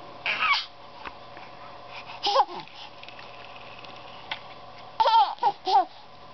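Baby squealing and giggling in short, high-pitched bursts: one squeal right at the start, another about two seconds in, and a quick run of three near the end.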